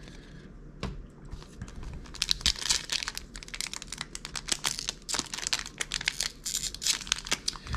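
Foil booster-pack wrapper crinkling and tearing as it is picked open by hand, a dense crackle starting about two seconds in after a single click.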